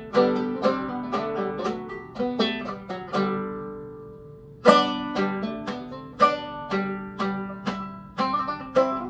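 Banjo played clawhammer style, picking out a Baroque minuet melody note by note with ringing plucked tones. About three seconds in, a note is left to ring and fade at a phrase end, then the tune resumes with a strong strike a second and a half later.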